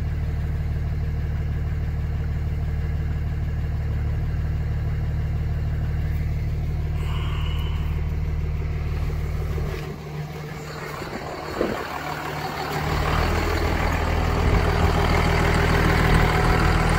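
A 2004.5 Dodge Ram 2500's 5.9-litre Cummins inline-six turbo diesel idling steadily, first heard from inside the cab. About ten seconds in the sound drops briefly, then it comes back louder and fuller from the front of the truck, idling on a tune meant to make it sound like the older 12-valve Cummins.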